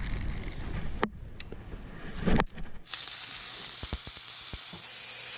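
Low rumbling noise with a sharp click and a loud knock, then from about three seconds in, steak sizzling steadily in a hot pan.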